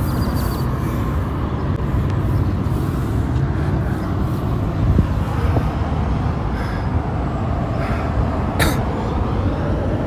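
Steady rumble of busy highway traffic, vehicles passing. A brief sharp hiss stands out about eight and a half seconds in.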